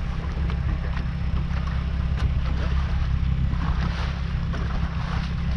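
Steady low rumble of a fishing boat's motor running, with wind on the microphone.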